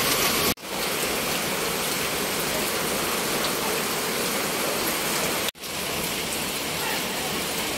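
Steady rain falling, an even hiss. It cuts out for a split second twice, about half a second in and again about five and a half seconds in.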